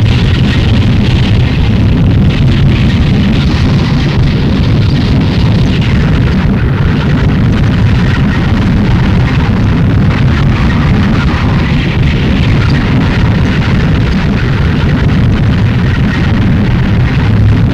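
Harsh noise music: a loud, unbroken wall of distorted noise, heaviest in the bass, with a steady hiss-like haze above it and no pauses or beat.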